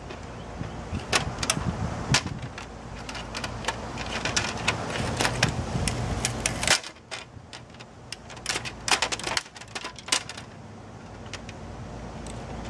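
Plastic housing and scanner lid of an HP inkjet printer clicking, snapping and rattling as they are pried apart by hand, a rapid scatter of sharp clicks and knocks. A low steady rumble underneath drops away about seven seconds in.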